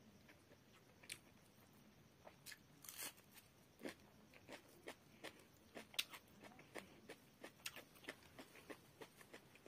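Faint eating sounds of rice and fish curry eaten by hand: wet mouth clicks and smacks while chewing, with soft squishes of fingers mixing rice on the plate. The clicks are irregular and come more often after the first few seconds.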